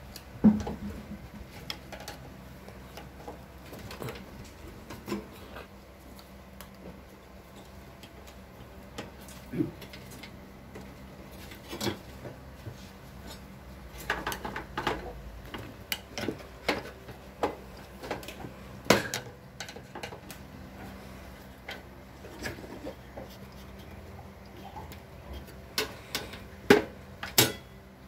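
Irregular metallic clicks and knocks from hands and a screwdriver working on the sheet-metal frame, brackets and fittings of a Paloma gas water heater. A sharp knock comes about half a second in, a cluster of clicks falls around the middle, and the loudest knocks come near the end.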